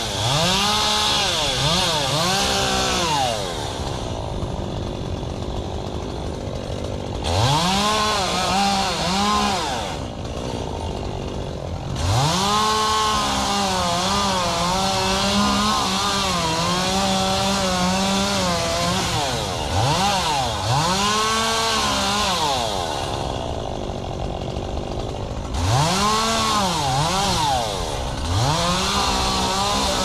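Chainsaw cutting palm fronds: it revs up to full throttle in repeated runs of a few seconds and drops back to idle in between. The longest run, about seven seconds, wavers in pitch as the chain bites.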